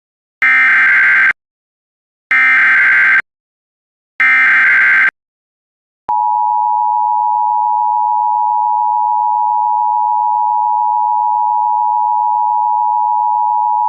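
Emergency Alert System broadcast signal for an immediate evacuation: three short bursts of warbling digital SAME header tones, then the steady two-tone EAS attention signal held from about six seconds in.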